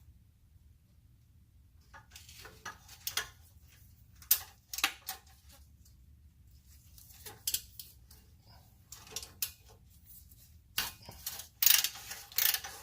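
Scattered metallic clinks and knocks from a new exhaust Y-pipe being worked into place by hand under a car. A denser run of louder knocks comes near the end.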